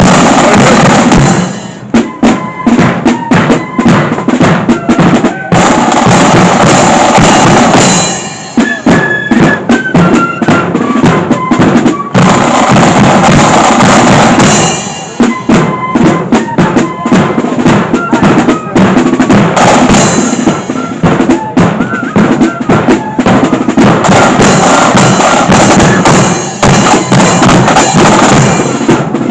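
Marching flute band playing: flutes carry a stepping melody over rattling snare drums and a bass drum, with loud snare rolls recurring every several seconds.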